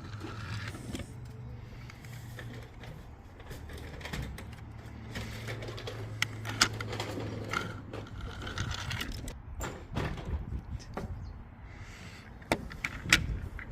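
Toy cars clicking and knocking as they are handled or set rolling, with a few sharper clacks, over a low steady hum that fades out about eight seconds in.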